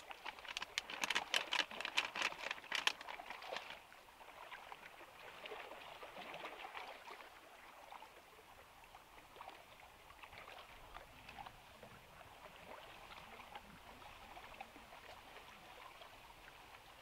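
A plastic bag crinkling as powder is poured from it into a plastic tub, a crisp crackle for the first three or four seconds. After that come soft, scattered clicks of a knife slicing cheese on a wooden board, over a faint steady water sound.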